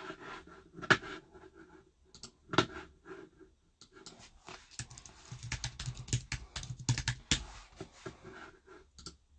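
Irregular typing and clicking on a computer keyboard: a few separate taps, then a busier run of keystrokes in the middle, then a few more taps.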